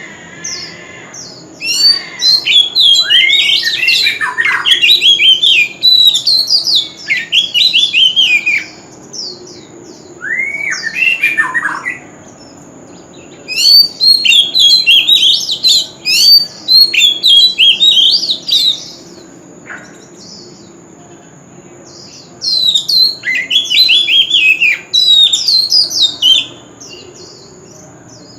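Male oriental magpie-robin singing in loud bouts of rapid, varied whistles and harsh notes, four bouts with short pauses between them.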